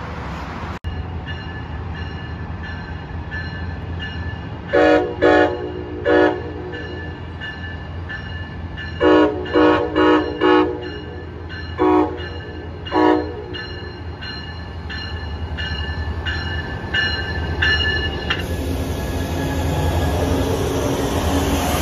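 Horn of an arriving Amtrak Surfliner train led by a Siemens Charger SC-44 locomotive, sounded in short blasts: three about five seconds in, four more around nine to eleven seconds, then two around twelve and thirteen seconds, over a low steady rumble. Near the end the locomotive's engine and wheels get louder as it passes close by.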